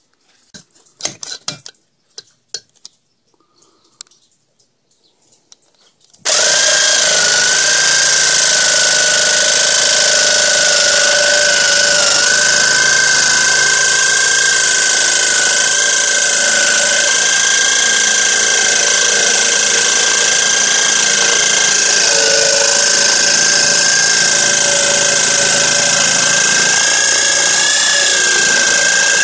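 A few light knocks, then about six seconds in an electric power tool starts suddenly and runs loud and steady at high speed with a constant whine, as the form boards are cut.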